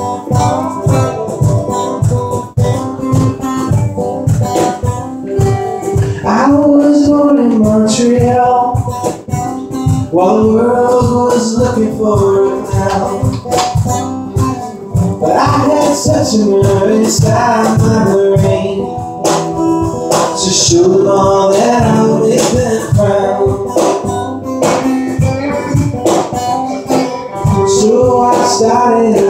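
Live acoustic guitar strumming chords with a man singing over it; the vocal phrases come in about six seconds in.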